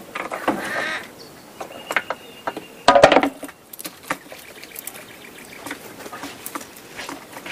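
A New Caledonian crow flying down from its perch to a clear plastic box and back up, with wing flaps and scattered taps and knocks. There are two louder bursts, one about half a second in and a louder one about three seconds in.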